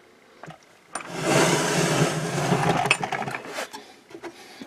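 A storage drawer sliding on its runners, a rough rolling scrape starting about a second in and lasting about two seconds, with a few small clicks and knocks around it.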